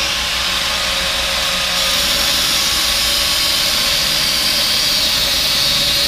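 Grinder with a cutting wheel running steadily under load, cutting through the pin that holds the steering-column lock plate: a steady high hiss over a constant motor whine.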